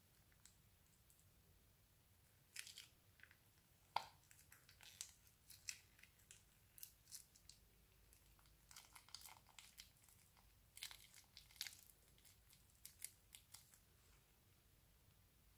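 Crunchy slime and a plastic piping bag being squeezed and handled: faint, irregular crackling and crinkling in short bursts, starting a couple of seconds in and dying away near the end.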